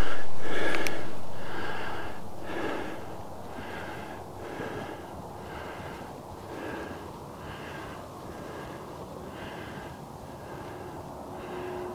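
A man breathing hard and rhythmically while hiking uphill, louder over the first couple of seconds and then steady.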